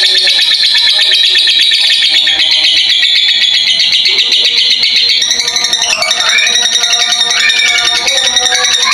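Blue masked lovebird singing a long unbroken run of rapid, high chattering trills, the continuous 'ngekek' song that lovebird keepers prize. About halfway through, lower, gliding notes join the fast high chatter.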